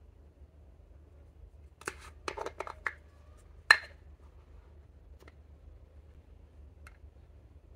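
Small plastic makeup compact being handled and prised open: a quick run of small plastic clicks about two seconds in, then one sharp snap as the lid comes free, followed later by two faint ticks.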